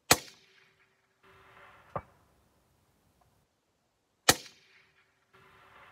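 Two shots from a .22 LR Ruger Precision Rimfire rifle, about four seconds apart, each a sharp crack with a short tail. About two seconds after the first shot, a faint distant knock is heard: the bullet striking downrange at about 314 yards.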